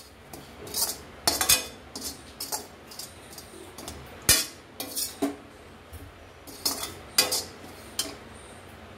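A metal spatula scrapes and clinks irregularly against a metal kadhai as roasted ground coriander is stirred and scooped out, with one sharper knock about four seconds in.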